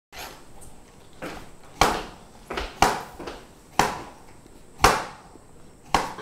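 Kitchen knife chopping cucumber on a cutting board: sharp knocks about once a second, with lighter strokes in between.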